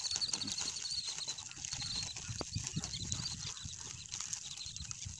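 A plastic courier mailer being torn open and crinkled by hand, with irregular rustles and small clicks. A rapid high chirping sounds in the background for the first two seconds or so.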